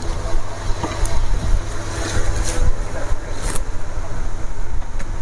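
A steady low rumble, with a few brief rustles and knocks about one, two and a half and three and a half seconds in as a small wet-masala grinder is handled and brought out to be shown.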